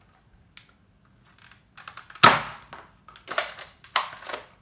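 Spring-powered Nerf dart blaster being primed and fired: a few small clicks from the priming handle, then a loud sharp shot about two seconds in, followed by two more sharp clacks.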